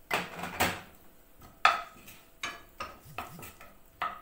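Wooden spoon stirring chopped onion in a non-stick frying pan, knocking and scraping against the pan several times, with the loudest clatter at the start.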